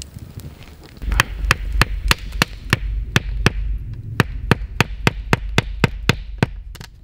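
A quick, even series of sharp knocks, about three to four a second, starting about a second in, over a low rumble.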